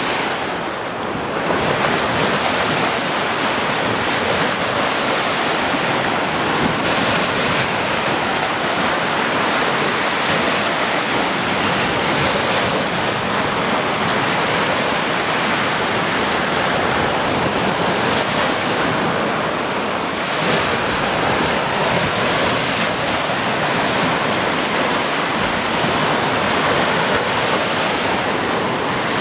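Small ocean waves breaking and washing up a sandy shore: a continuous rush of surf with gentle swells and easings.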